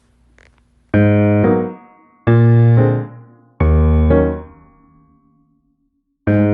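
Background music: slow electric-piano chords, each struck and left to fade, about three in a row with a pause before the next.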